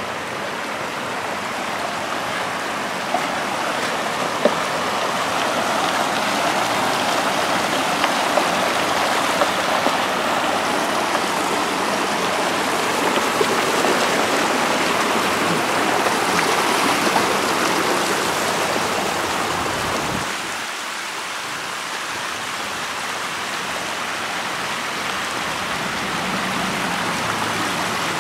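Water from a broken water main rushing in a shallow sheet across a yard and driveway: a steady rush of running water that eases a little about twenty seconds in.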